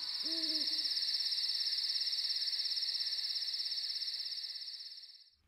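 Insect trilling: a steady, high-pitched, rapidly pulsing chorus of the cricket kind, with a brief low call about half a second in. The trilling fades out near the end.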